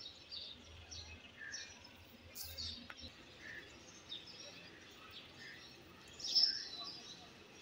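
Faint outdoor ambience with small birds chirping here and there, and one louder chirp about six seconds in.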